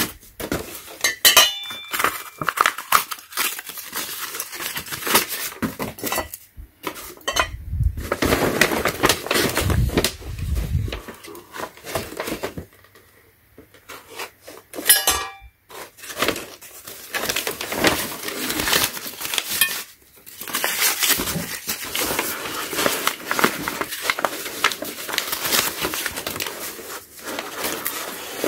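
Brown packing paper crinkling and tearing as it is pulled off the red-painted steel tubes and brackets of a Pittsburgh portable tire changer. The metal parts clink and knock against each other, with a brief lull about halfway through.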